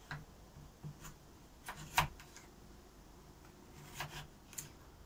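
Kitchen knife dicing raw potato on a wooden cutting board: a handful of irregular knocks of the blade through the potato onto the board, the loudest about two seconds in.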